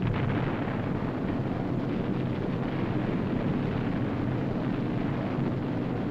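Bomb explosions: a sudden blast at the start, then continuous heavy rumbling of further detonations.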